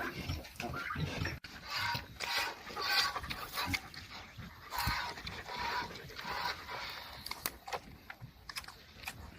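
A sow and her newborn piglets grunting and snuffling in a run of short noisy bursts, about one a second, thinning out near the end.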